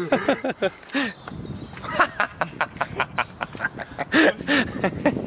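Laughter: a few pitched sounds in the first second, then a run of short, rapid bursts, loudest about four seconds in.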